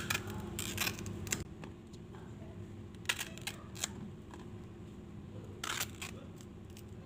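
Kitchen knife cutting firm raw green bananas in half over a steel plate: a scattering of short sharp clicks and taps at irregular intervals as the blade goes through the fruit and knocks the plate.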